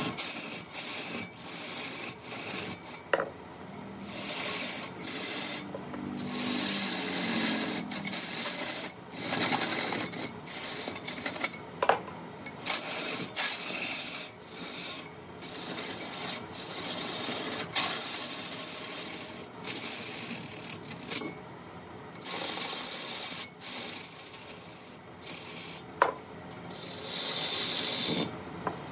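Wood being cut and scraped on a wood lathe, with the tool working the spinning wood in repeated stretches of one to a few seconds broken by short pauses.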